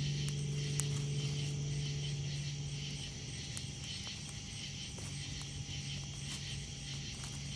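A campfire crackling with occasional sharp pops, over a steady chorus of night insects calling. A low steady hum fades out about three seconds in.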